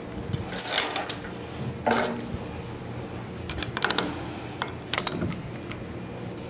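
Steel parts clinking and knocking in four short clusters of clanks as the heavy-duty pneumatic motor is handled and fitted to the clamshell lathe.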